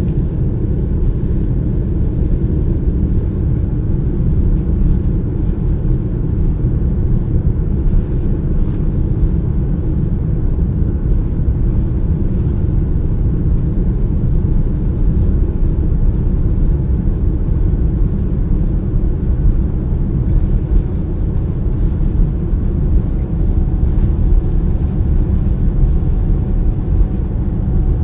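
Boeing 787-9 cabin noise during the takeoff roll: a steady low rumble of the engines at takeoff thrust and the wheels on the runway, heard from inside the cabin, with faint ticks now and then.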